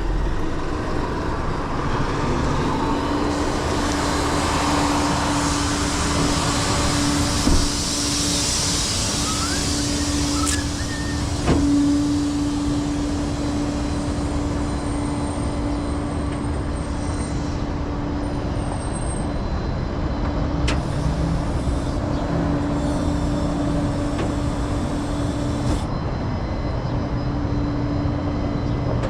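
Tow truck running steadily, with a steady droning tone setting in about three seconds in and a few light clicks.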